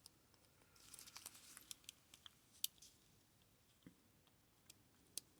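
Faint scattered clicks and light scrapes of a lock pick moving inside a Yale padlock's keyway, with a tension wrench in place, most of them bunched between about one and three seconds in.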